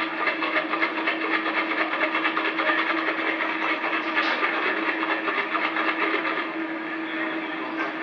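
Boxing-arena crowd applauding, a dense, even patter of many hands clapping with crowd noise mixed in, over a steady hum.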